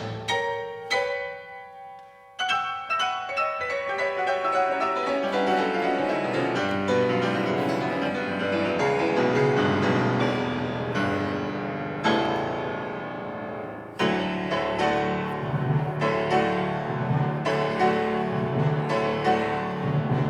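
Piano playing classical music: a few struck notes and a held chord, then, from about two seconds in, a fast, dense run of notes that builds, with strong accented chords about twelve and fourteen seconds in.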